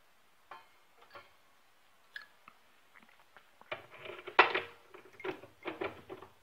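Metal clinking and knocking as a short round metal bar is worked into a lathe's three-jaw chuck: a few light clicks at first, then a burst of clattering from a little past halfway, loudest about four and a half seconds in.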